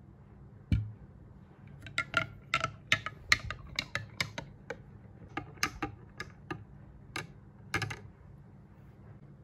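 A glass set down on a cloth-covered table with a thump, then a metal spoon stirring a drink in a tall glass, clinking against the glass about three times a second, some clinks ringing.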